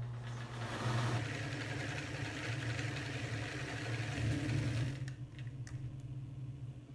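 Electric sewing machine running steadily, stitching down a folded-over pocket in thick sweater knit. It stops about five seconds in, followed by a few light clicks.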